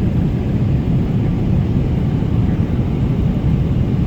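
Loud, steady low rumble of a moving vehicle, with no change in level.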